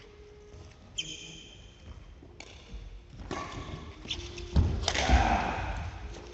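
Badminton racket strings striking a shuttlecock with a sharp ping about a second in, with a few lighter hits after it. Near the end come heavy footfalls and thuds on a wooden sports-hall floor as a player lunges, the loudest sounds here.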